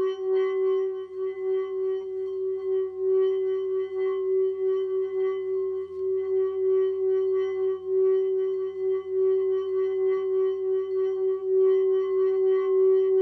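Tibetan singing bowl played by a wooden mallet circling its rim, holding one steady deep tone with higher ringing overtones above it. Its loudness swells and dips gently as the mallet goes round.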